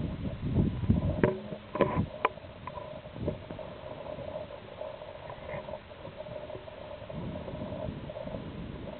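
Wind buffeting the microphone in gusts, strongest in the first second or so and again near the end, with a few sharp clicks a second or two in.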